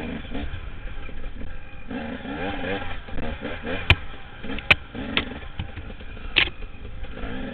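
Enduro dirt bike engine revving up and down as it is ridden, with several sharp knocks, the loudest about four seconds in and again near six and a half seconds.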